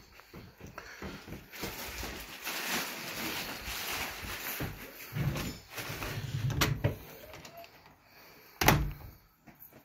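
Balcony door being opened: rustling and handling, a few dull thuds, then a sharp loud clack about nine seconds in.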